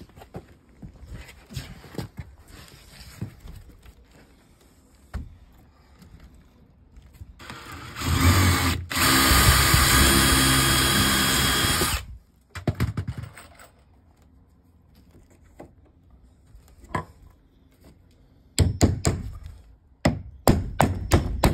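Power drill boring a pilot hole through a wooden fence-panel batten for about four seconds, so that the nail will not split the wood. Near the end, a quick run of hammer blows drives the nail in.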